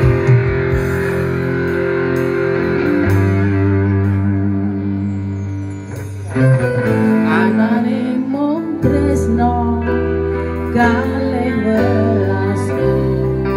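Live band music from electronic keyboard and electric guitar. Held chords play for the first few seconds, then a woman's singing voice comes in over them about six seconds in.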